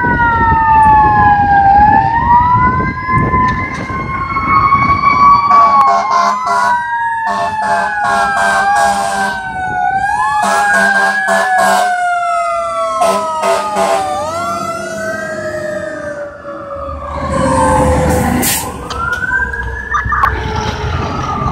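Fire apparatus sirens: an electronic siren wailing up and down about every two and a half seconds, over a second siren tone slowly falling in pitch. In the middle come repeated steady blasts, likely the truck's horn, and near the end the rumble of heavy vehicles passing.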